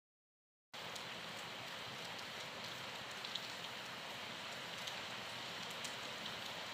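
Rain falling steadily, an even hiss with scattered drop ticks, cutting in suddenly just under a second in.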